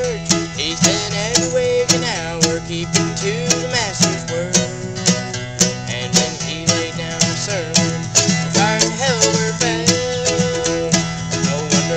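Bluegrass string band playing an instrumental passage: acoustic guitar and banjo picking to a steady beat of about two strokes a second, under a sliding lead melody.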